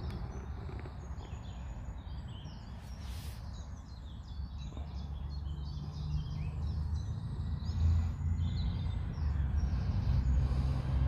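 Woodland birds chirping and singing over a low rumble that grows louder in the second half.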